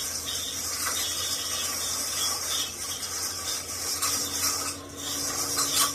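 Lathe running with a cutting tool in the chuck scraping across a cylinder head's deck face as it is resurfaced: a steady rasping cut over the lathe's hum, with a sharp knock near the end.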